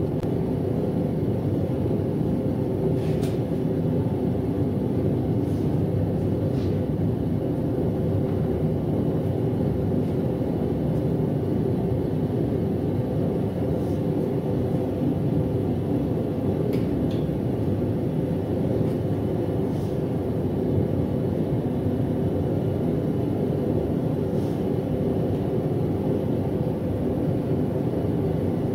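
Propane gas forge burner running steadily, a constant rushing roar heating the steel, with a few faint light metal clinks now and then.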